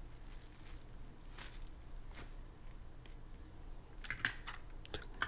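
Plastic zip-lock bags of game pieces faintly rustling and crinkling as they are handled and set down, with a quick cluster of crinkles near the end.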